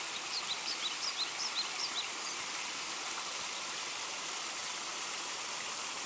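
Small woodland stream spilling over a rock ledge in a low cascade: a steady rush of falling water. A run of short, high bird chirps sounds over it in the first two seconds or so.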